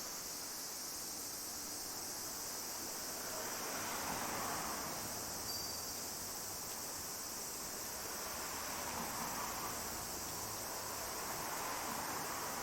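Steady, high-pitched insect chorus, with a softer, lower hiss that swells and fades twice.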